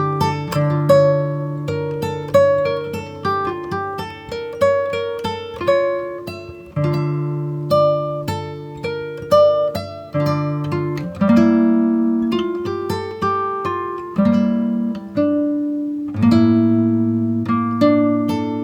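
Background music: acoustic guitar picking a melody over bass notes.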